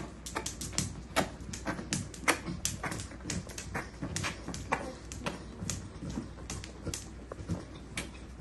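A basset hound's claws clicking and scraping on a tile floor as its legs paddle in the convulsive phase of a generalised epileptic seizure: irregular sharp taps, about three a second.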